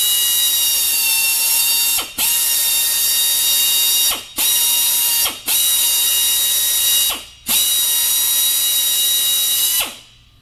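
Low-speed drill turning a carbide cutter through a nail-hole injury from the outside of a tire, clearing damaged rubber and steel. It runs with a steady high whine in several short runs of about two seconds each, stopping briefly between them, and stops shortly before the end.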